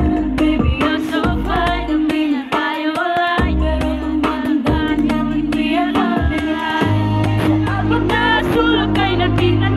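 Pop song performed live by a female vocal group: women's voices singing over a backing track with a steady beat. A heavier bass line comes in about seven seconds in.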